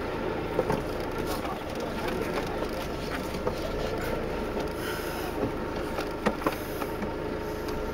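Off-road 4x4's engine running as the vehicle creeps along a rough dirt track, heard from inside the cabin, with a few short clicks and knocks scattered through it.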